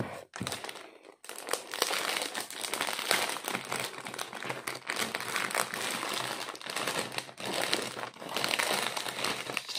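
Clear plastic packaging crinkling and rustling as a rolled canvas in its plastic sleeve is handled and unwrapped, starting about a second in.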